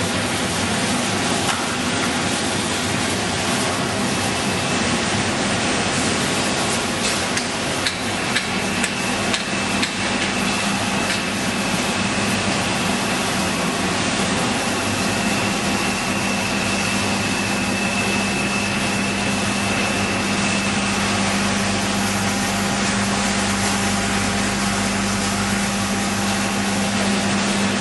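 Corn flakes production line machinery running: a loud, steady dense noise with a low hum that grows stronger about halfway through and a faint high whine, with scattered clicks and clatter.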